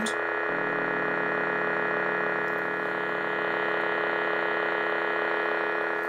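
Savi's Workshop custom lightsaber's idle hum: a steady electronic hum of several held tones from the hilt's sound effects, its lower tone shifting slightly about half a second in.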